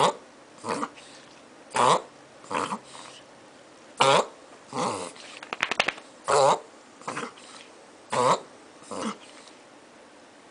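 Beagle reverse sneezing: repeated loud, rasping in-drawn snorts through the nose, coming in pairs about every two seconds. A harmless spasm that is common in beagles. A short run of clicks sounds about halfway through.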